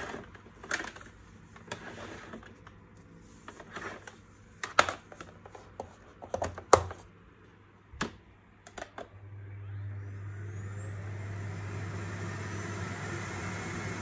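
Sharp clicks and knocks of handling, the loudest about five and seven seconds in. About nine seconds in, the Electrolux Pure D8.2 Silence vacuum cleaner's motor starts, spinning up with a whine that rises in pitch over two or three seconds, then runs steadily.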